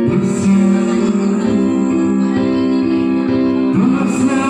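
A guitar-like melody line made by a man's voice into a handheld microphone and played through a PA loudspeaker, imitating a plucked guitar.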